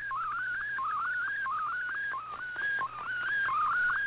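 Digital-mode image signal from a shortwave broadcast, heard through a communications receiver: a single warbling tone that climbs in repeated short sweeps, several a second, as an MFSK picture is sent line by line. A faint steady hum lies underneath.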